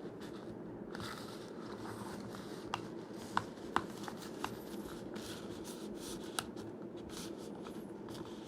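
Hands handling a stiff kydex holster: a few short, sharp clicks and taps, most of them in the middle few seconds, over a faint steady hum.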